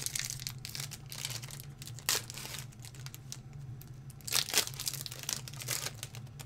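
Foil wrapper of a Pokémon booster pack crinkling and tearing as it is opened by hand, in irregular rustles with louder ones about two seconds in and again around four and a half seconds. A steady low hum sits underneath.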